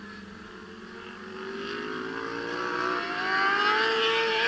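A vehicle's engine accelerating, its pitch climbing steadily and getting louder as it comes closer.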